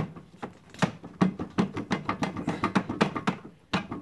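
Irregular clicks and knocks, several a second, from the threaded-rod fence adjuster of a homemade router table being worked by hand.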